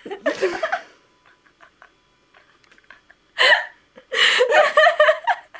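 People laughing in short bursts: one in the first second, then again in the last two seconds.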